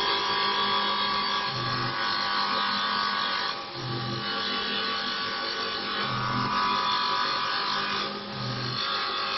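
Mini CNC wood-turning lathe running and cutting wood: a steady motor whine with the tool scraping the spinning workpiece. The sound swells and eases in a regular cycle about every two seconds, with a short low hum at each repeat.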